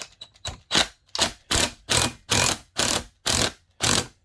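Hand ratchet wrench ratcheting in quick back-and-forth strokes, about nine in a row, as the chainsaw's flywheel nut is run down before its final torque to 32 foot-pounds.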